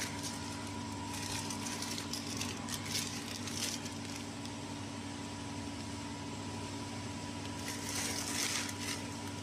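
Crinkling of a sealed clear plastic potato-chip bag handled in the hand, in several short bursts in the first few seconds and again near the end, over a steady machine hum.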